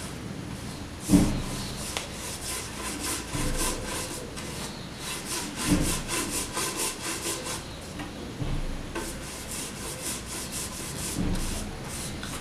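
Flat paintbrush stroking shellac over a kraft-paper-covered MDF box: a quick, uneven run of scratchy bristle strokes, with a few soft knocks, the loudest about a second in.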